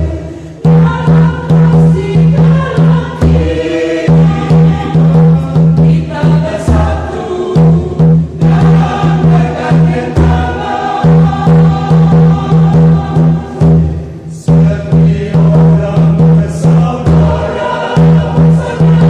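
Mixed church choir singing a lively hymn in Indonesian, accompanied by a tifa hand drum beating a steady rhythm underneath.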